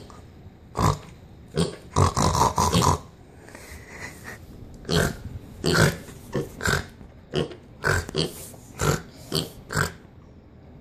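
Young pig grunting in short bursts: a cluster about two seconds in, then roughly two grunts a second from about five seconds in until near the end.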